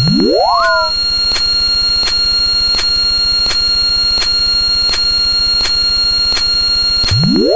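Loud layered electronic sound effects: a quick upward pitch sweep of several tones, then a steady harsh drone with a high whine and regular ticks about twice a second. The same upward sweep comes again near the end.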